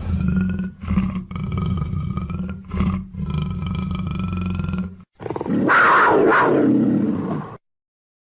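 Big cat growls from black panther and cougar recordings: long pitched growls broken by brief pauses, then a louder, harsher roar about five seconds in that cuts off suddenly.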